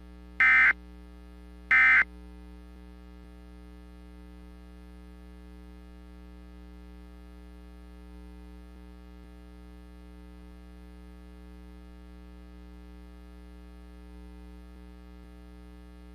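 Two short bursts of EAS digital data tones (the warbling two-tone data signal near 1.5–2 kHz), about a second apart near the start: the last of the three End of Message bursts that close an emergency alert. After them a steady electronic hum with many overtones carries on.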